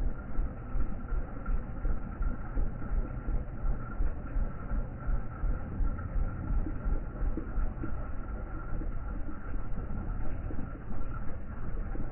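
Wind buffeting a phone's microphone: a low rumble that swells and dips unevenly, with a faint steady high tone above it.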